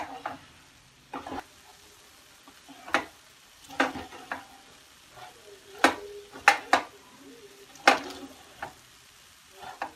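Wooden spatula stirring puffed rice coated in sticky jaggery syrup in a nonstick pan, with irregular scrapes and knocks against the pan about once a second.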